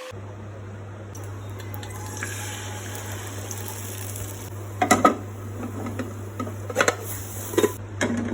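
Kitchen utensil clinking against a dish several times in the second half, over a steady low hum.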